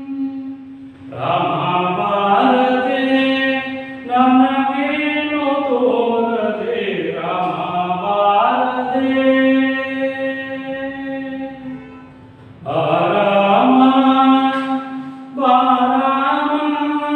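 A man singing a Kannada verse unaccompanied in a slow, chant-like melody. He holds long notes and slides between pitches, pausing briefly about a second in and again near twelve seconds.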